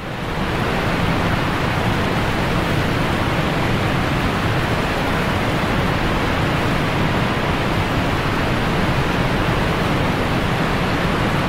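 Steady, loud rush of water pouring from a dam's open spillway gates, swelling in over the first second and then holding even.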